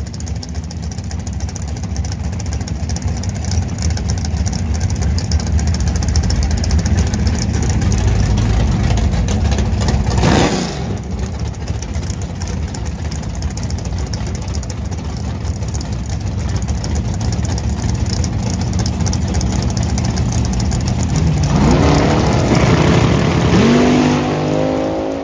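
Drag-racing car engines running loud and rough, with a short loud burst about ten seconds in. Near the end an engine revs up, rising in pitch.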